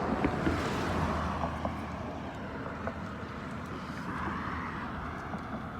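Road traffic: the tyre and engine noise of cars going by, swelling about half a second in and again about four seconds in.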